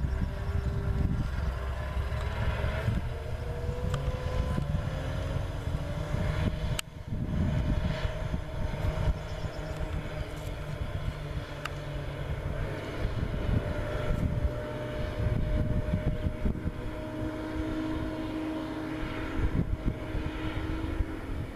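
Diesel engine of a Challenger RoGator self-propelled crop sprayer running at working speed, a steady drone with a low rumble and a pitch that drifts slightly, broken by a brief dip about seven seconds in.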